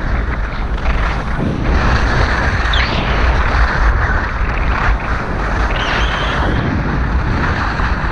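Wind buffeting a GoPro Hero 5's microphone while skiing fast downhill, with skis scraping over hard-packed snow; the hiss swells with each turn.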